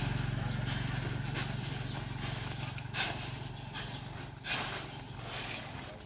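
A long-handled hoe scraping and pushing through a heap of granular fertilizer on a plastic tarp. The strokes come as short dry swishes, about one every second and a half.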